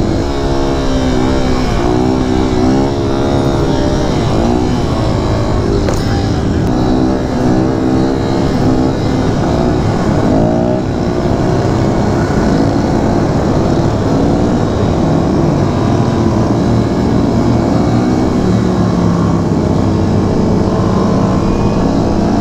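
Kawasaki Z125 Pro's single-cylinder 125 cc engine running under way. It revs up and down repeatedly in the first half, then holds a steadier note.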